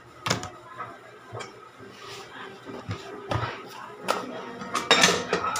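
Scattered knocks and clinks of tableware and things being handled on a dining table, a cluster of louder ones near the end.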